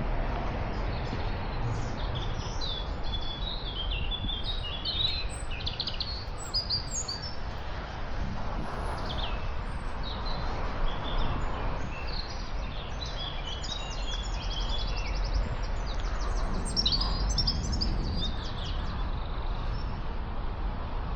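Several songbirds singing at once, a busy mix of short high chirps and warbles with fast trills about two-thirds of the way through, over a steady low background rumble.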